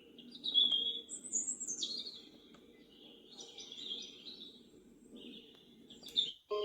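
Recorded birdsong soothing sound played through a sunrise alarm clock's small built-in speaker: birds chirping and trilling over a steady low background noise, cut off suddenly near the end.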